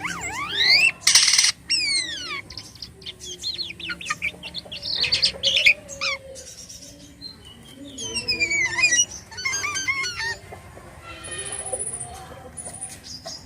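Jalak kapas starling singing a long, varied song of whistled slurs that sweep up and down, broken by short harsh notes and high thin tones, packed with mimicked sounds (isian).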